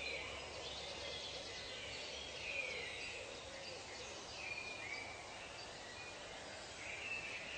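Birds calling over a steady background hiss of natural ambience, with short whistled calls coming and going every second or two.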